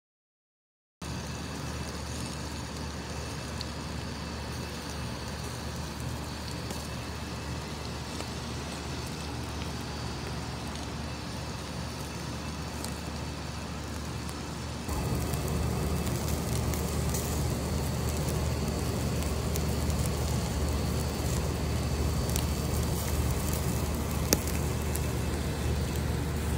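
Charcoal fire with faint crackling and sizzling over a steady low outdoor rumble. The sound begins after about a second of silence and gets louder about fifteen seconds in, with one sharp crack near the end.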